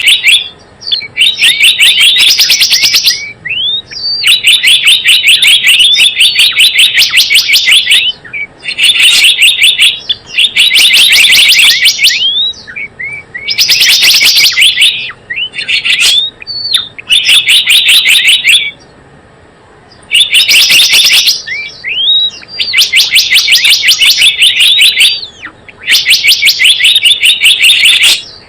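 Gelatik bloong lure call: loud bouts of rapid, high chirps, each bout lasting one to two seconds, repeated over and over with short pauses and single rising notes between bouts.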